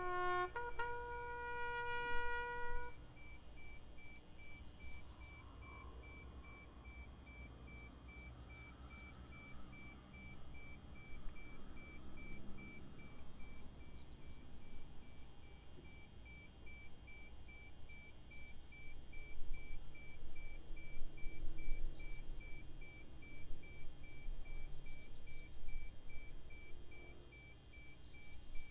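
A bugle sounds a short call ending in one held note of about two seconds, marking the start of a minute of silence. After it there is only faint low rumble and hiss from the open parade ground.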